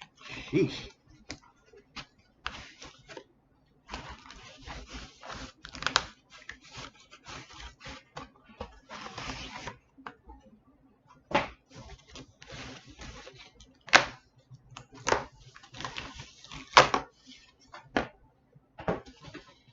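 Packaging being handled and pulled apart: irregular sharp clicks and taps with short bursts of rustling, as tightly packed contents are worked loose from a shipping box.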